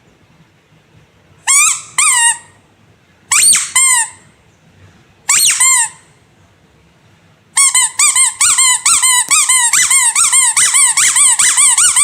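Squeaky rubber animal toy being squeezed: a pair of short squeaks, another pair, a single one, then from about halfway on a quick run of squeaks, about four a second.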